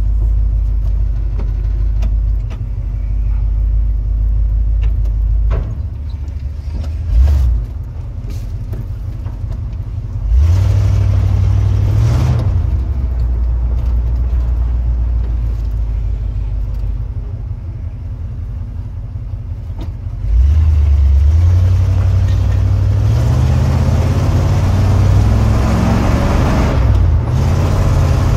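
1970 Ford pickup truck's engine idling, heard from inside the cab, and revved with the gas pedal. There is a quick blip, then a short rev a few seconds later, then a longer rev in the second half that climbs in pitch and drops back near the end.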